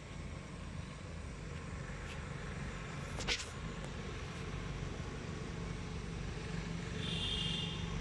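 Low, steady hum of a motor vehicle's engine running, growing a little louder in the second half. There is one sharp click a little over three seconds in, and a short, high buzzy tone near the end.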